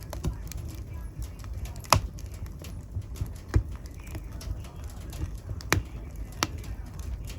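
Wood fire burning in a fireplace, crackling with irregular sharp pops over a low, steady rumble of the flames; the loudest pops come about two seconds in and near six seconds.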